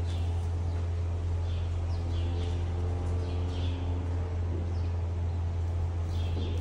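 A steady low hum runs throughout, with small birds chirping again and again over it. A faint drawn-out pitched sound is heard for about two seconds in the middle.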